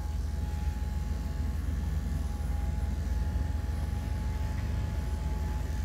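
Cordless dog-grooming clippers running steadily, a low buzzing hum with a thin steady whine above it.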